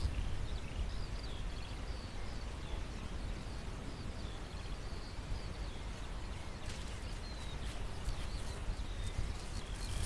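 Open-pasture ambience: a steady low rumble of wind on the microphone, small birds chirping high and intermittently, and a few soft rustling thuds in the grass in the last few seconds as horses walk closer.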